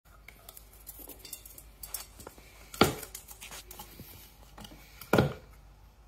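Wooden puzzle toy being worked by a conure's beak and feet: light clicks and scratches on the wood, with two loud wooden knocks about three and five seconds in.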